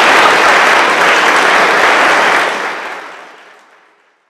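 Audience applauding, holding steady and then fading away over the last second and a half.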